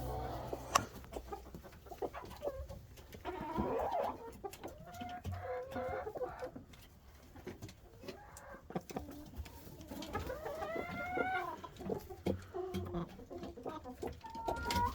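Hens clucking and giving drawn-out, wavering calls, with scattered sharp taps: agitated clucking as the hens squabble and peck at each other.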